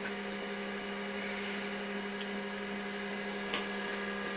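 Apple ProFile 5 MB external hard disk running through its power-on self-check: a steady hum with a faint whir, and a couple of faint ticks.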